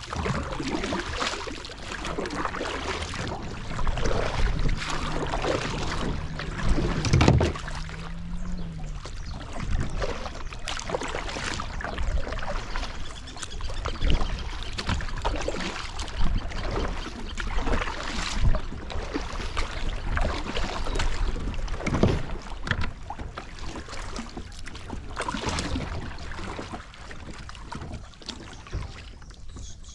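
Water splashing and sloshing around a fishing kayak, with irregular knocks and handling noise.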